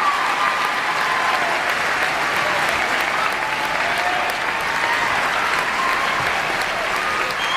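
A crowd clapping steadily.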